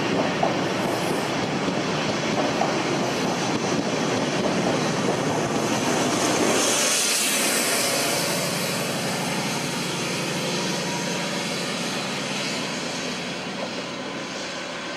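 Express passenger train running through the station at speed: a steady rush and clatter of wheels on the rails, loudest about seven seconds in as the rear vehicle goes by, then fading away as the train recedes.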